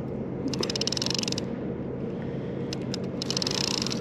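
Okuma Komodo baitcasting reel clicking rapidly in two bursts of about a second each, as a hooked catfish pulls line off against the drag.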